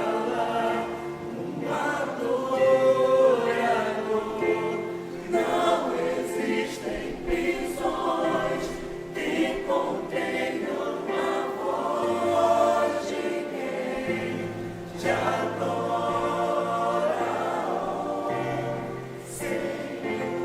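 Church choir singing a hymn, several voices in harmony, with a lower sustained part coming in about twelve seconds in.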